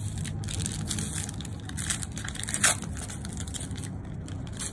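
Plastic-foil wrapper of a trading-card booster pack being torn open and crinkled in the hands: a continuous crackly rustling, with one louder crackle about two and a half seconds in.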